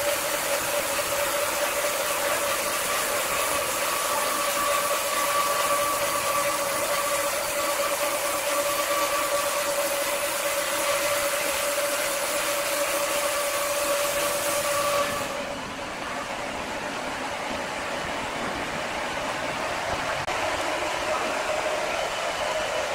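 Large band sawmill running steadily, a constant machine hum with a steady whine. About fifteen seconds in the sound drops a little and turns duller.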